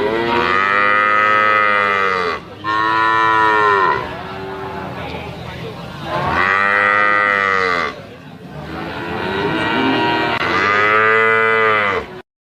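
Water buffalo calling: four long, drawn-out bellows in two pairs, each about one and a half to two and a half seconds, the pitch rising and then falling within each call.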